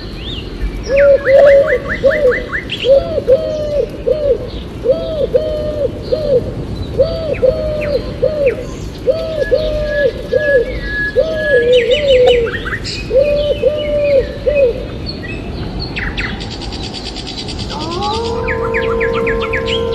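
Birds calling: a low, cooing-like call repeated in quick runs of two to four notes, with higher chirps and trills over it. Near the end a long call rises and then holds steady.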